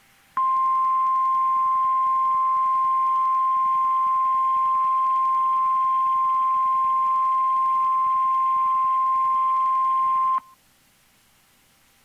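NOAA Weather Radio 1050 Hz warning alarm tone: one steady, loud, high tone that starts about half a second in and cuts off sharply about ten seconds later. It signals that a warning message is about to be broadcast.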